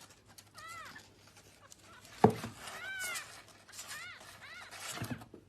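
A small animal giving four or five short high-pitched calls, each rising then falling in pitch, with a sharp thump about two seconds in and a softer knock near the end.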